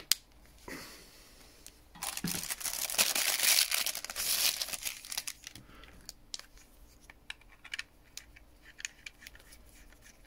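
Plastic packaging crinkling and rustling for about three seconds, the loudest sound here, with small clicks and taps of a handheld radio being handled before and after.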